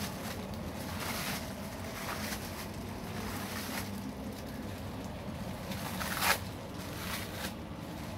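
A steady low hum with short, irregular hisses over it, several in the first four seconds and the loudest about six seconds in.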